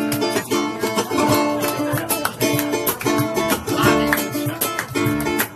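Ukuleles strummed in a steady, rhythmic accompaniment, an ensemble playing a song.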